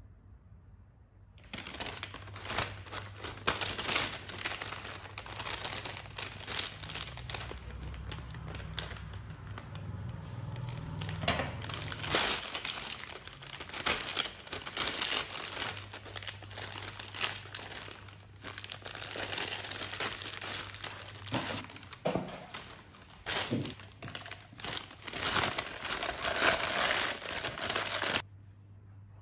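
Disposable plastic piping bag crinkling and rustling as it is handled and fitted with a metal piping tip. The crinkling comes in irregular loud spurts and stops abruptly near the end.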